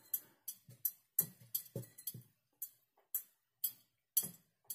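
A thin jewelry chain being dipped again and again into a glass jar of water to rinse off citric-acid pickle. It gives a series of about a dozen short, sharp clinks and small splashes at an uneven pace, two to three a second.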